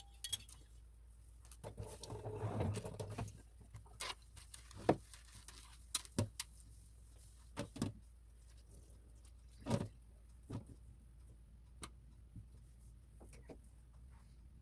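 Scattered light clicks and knocks of objects being handled, with a short rustling stretch about two seconds in, over a low steady hum.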